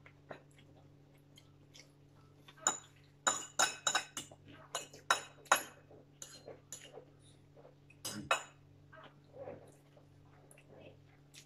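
Metal forks clinking and scraping against ceramic plates and bowls during a meal: a quick run of sharp clinks a few seconds in, and a few more later on.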